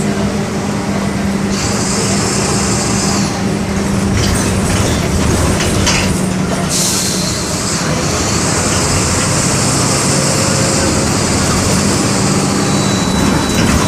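MWM 6.12 TCE six-cylinder inline turbodiesel of a Volksbus 17-230 EOD bus running on the road, heard from on board, with a steady low engine note. A high hiss comes in twice, briefly about a second and a half in and again from about seven seconds in until near the end, and the engine note rises near the end.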